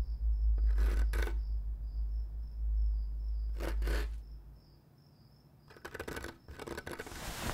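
Crickets chirping in a steady pulse over a low rumble that fades out about halfway through. Three brief clusters of sharp clicks cut across it: a pair about a second in, another pair near four seconds, and a longer clatter near the end.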